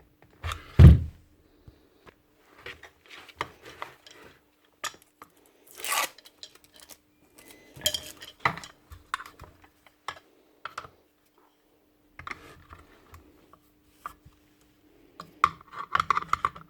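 Metal sander parts being handled and worked at with tools while the aluminium base is freed from the sander body: scattered clicks, clinks and knocks. A heavy knock comes about a second in, a scrape around the middle, and a quick run of rattling clinks near the end, over a faint steady hum.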